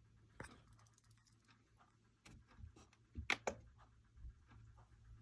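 Faint scattered clicks and taps over near silence, a few small ones early and a brief pair about three seconds in.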